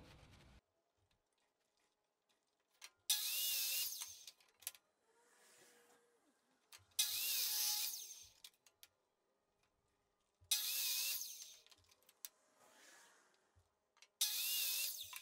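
Electric miter saw making four crosscuts through a cedar fence picket: each cut starts suddenly as a loud burst of motor and blade through wood lasting about a second and a half, followed by a quieter fading tail.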